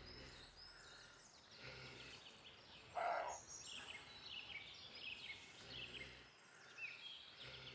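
Songbirds singing and chirping over a quiet outdoor background, with one short, louder mid-pitched sound about three seconds in.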